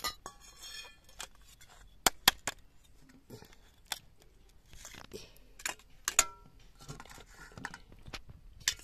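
Metal spoon clinking and scraping against a steel cooking pot and a stainless steel plate as chicken curry is dished out: a handful of sharp, separate clinks with softer scraping between them.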